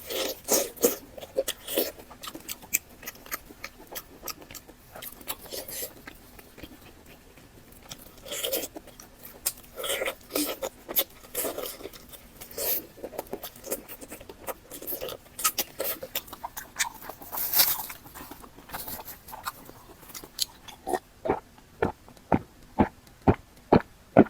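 Close-miked chewing and wet mouth sounds of a person eating, irregular at first, then settling into steady rhythmic chewing at about three chews a second near the end.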